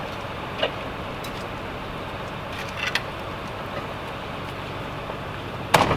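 Steady low hum of an idling vehicle engine, with a few faint clicks and one sharp knock near the end.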